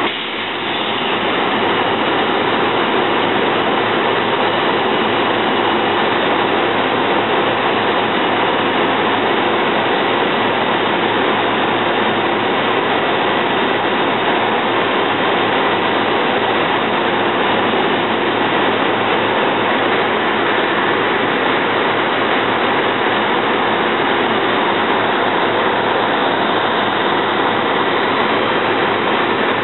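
SEPTA Silverliner IV electric railcars right beside the microphone, giving a loud, steady, even rush of noise with a faint hum under it.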